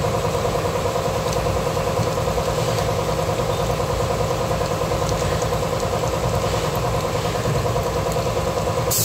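Machine motor running steadily, with a fast regular pulse and a steady hum; it stops abruptly near the end.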